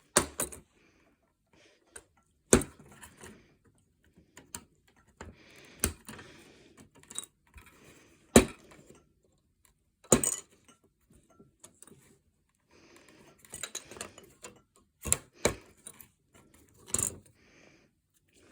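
Plastic model kit parts being cut and snapped free of the sprue: sharp clicks a few seconds apart, with light rustling and scraping of the parts being handled between them.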